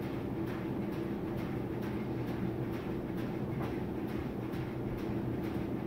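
Gas furnace running, its newly replaced draft inducer motor humming steadily along with the burners, with a light regular tick about twice a second.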